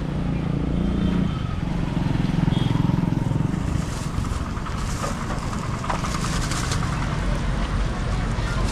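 A motor engine running steadily, loudest about two to three seconds in.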